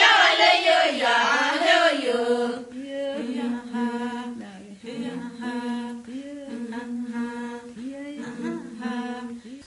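Background music of unaccompanied singing voices, with long held notes under a moving melody; loudest in the first two seconds, then softer.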